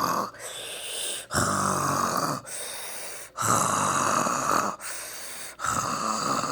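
Snoring: three louder, rough snores with quieter breaths between them, in an even rhythm of roughly one cycle every two seconds.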